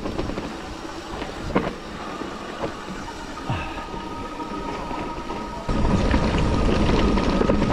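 Mountain bike riding down a rough trail: tyre noise on dirt and rock, with scattered knocks and rattles. A steady high whine comes in about three seconds in, and the low rumble gets louder about six seconds in.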